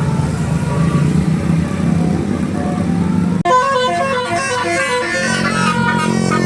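Bus engine running with faint horn notes over it. About three and a half seconds in, it cuts suddenly to a loud telolet basuri bus horn playing a quick melody of stepping notes.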